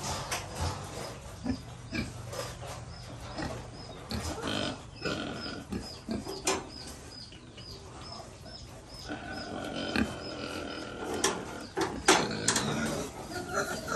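Young pigs grunting in a pen, with short calls and frequent sharp knocks and clatter as they nose and push at the trough and wooden gate.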